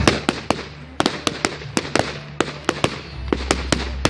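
Fireworks going off: a rapid, irregular string of sharp cracks and bangs, several a second, with a low rumble underneath in the second half.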